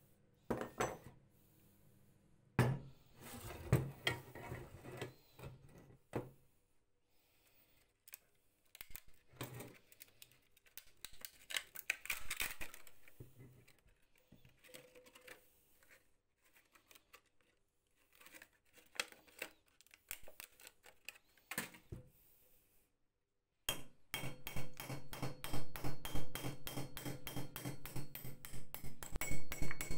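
Rusty metal parts of an old potato slicer handled and scraped in its metal housing: scattered clinks, knocks and scraping. Near the end a fast, even run of light hammer taps, about five a second, on a punch set against the slicer's crank part.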